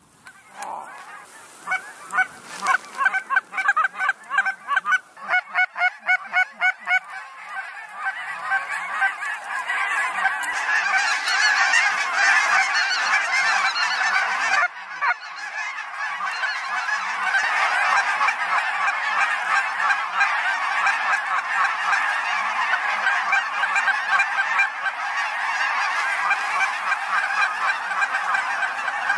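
A flock of geese honking in flight. At first the honks are separate, then from about eight seconds in they merge into a dense, continuous chorus of many geese calling at once, with a brief break about halfway through.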